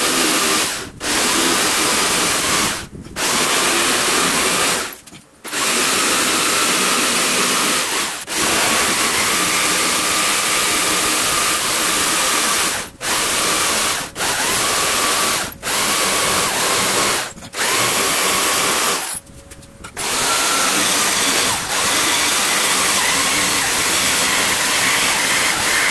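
Black & Decker corded jigsaw cutting a curve through a wooden board, its motor and blade running loudly. The saw stops briefly and starts again about ten times as the cut goes on.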